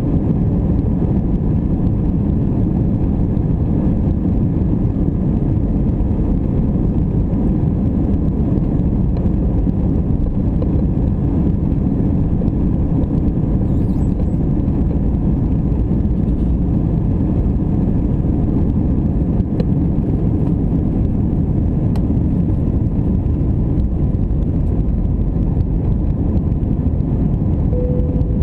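Steady engine and airflow noise heard inside the cabin of an Airbus A319 airliner in flight, a constant low rumble.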